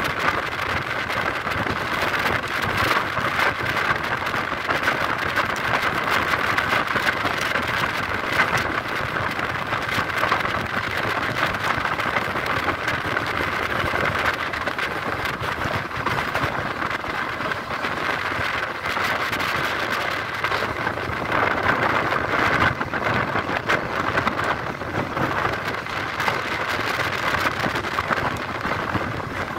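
Passenger train running at speed, heard from an open coach window: a steady rush of wheels on the track and wind, with a dense patter of fine ticks and no break in level.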